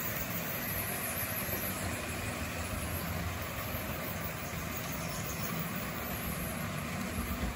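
Motorized HO-scale model railway turntable running, its small motor giving a steady whirring drone as the bridge turns.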